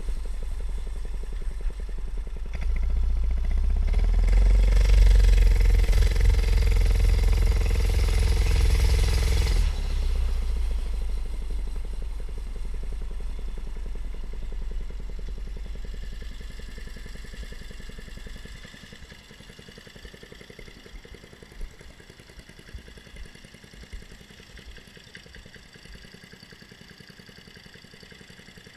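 Briggs & Stratton single-cylinder engine of a 1969 Ruttman mini bike running while ridden. It gets louder a few seconds in, eases off about ten seconds in, and drops much quieter after about eighteen seconds, with a few faint clicks near the end.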